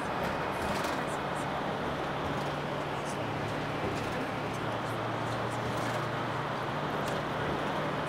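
Steady road noise heard from inside a moving vehicle: an even rush of tyre and wind noise with a low engine hum that settles in about a second in.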